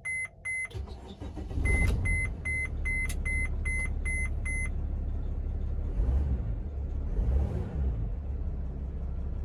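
A Mercedes-Benz Sprinter's 3.0 L BlueTEC V6 diesel is started: it cranks and catches about one and a half seconds in, then idles steadily. A dashboard warning chime beeps about three times a second over the start and stops about four and a half seconds in.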